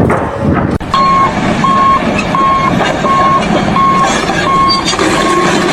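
Vehicle reversing alarm beeping evenly, about three beeps every two seconds, starting about a second in, over steady machine noise.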